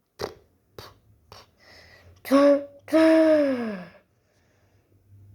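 Three light knocks about half a second apart, then a voice giving a short held 'ah' and a longer 'aah' that slides down in pitch, like a sigh.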